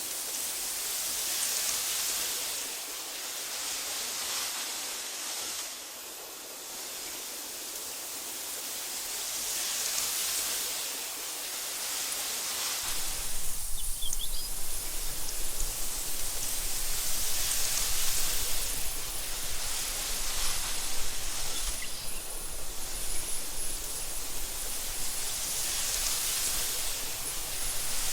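Wind blowing through meadow grass in gusts that swell and fade every few seconds. About halfway through, a low rumble joins and keeps on, with a brief high chirp just after it starts.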